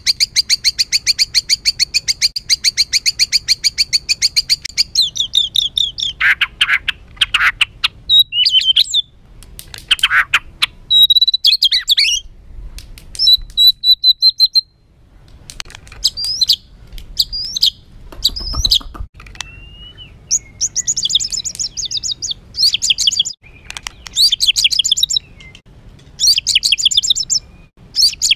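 White-rumped shama (murai batu) singing harsh, agitated song: a rapid rattling trill for about five seconds, then breaking into varied short whistled notes, chattering phrases and a gliding note.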